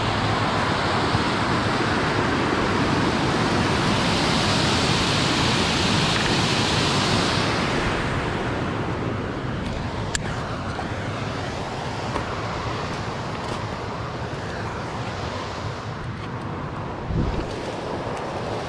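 Steady rush of water pouring over a small dam spillway. It is louder for the first several seconds and then softer, with one sharp click about ten seconds in and a low thump near the end.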